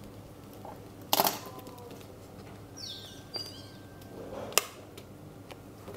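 Thin plastic folder being handled and flexed: a sharp crinkle about a second in, a short high squeak near the middle, and a couple of light clicks.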